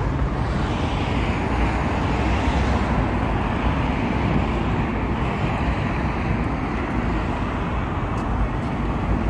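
Steady city road-traffic noise with a heavy low rumble.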